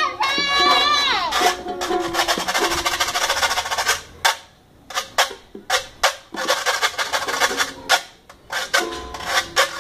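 A metal güira scraped in a fast rhythm along with a strummed toy guitar. A voice sings briefly at the start and again near the end. About halfway through, the scraping breaks into separate strokes with short gaps.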